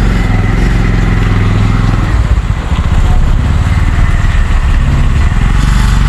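Vehicle engines running close by as a car and a three-wheeler auto-rickshaw pass each other on a narrow road, with rushing road and air noise over the engine sound.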